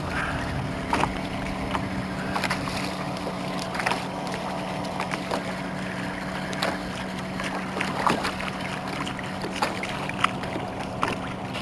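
Steady low hum of the boat's motor as it trolls, with scattered sharp clicks on top. A second, higher strand of the hum drops out about two-thirds of the way through.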